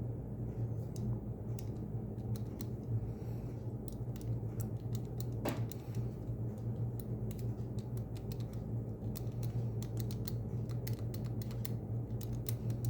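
Small irregular clicks of the number wheels of a Master Lock Pro Series 1178 combination padlock being turned through their detents, while the lock is decoded by feeling each wheel for looseness. A steady low hum runs underneath.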